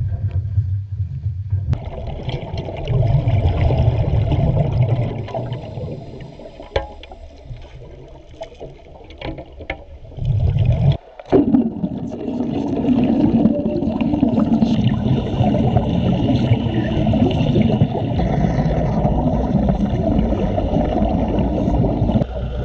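Muffled rumbling and gurgling water noise through a waterproof camera housing. It drops out briefly about eleven seconds in and then carries on underwater as a denser bubbling rush around working divers.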